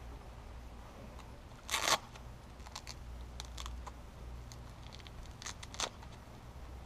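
Faint handling noise of a stationary, switched-off motorcycle: small scattered clicks and rustles, with one louder brief rustle about two seconds in and a shorter one near the end, over a low steady hum.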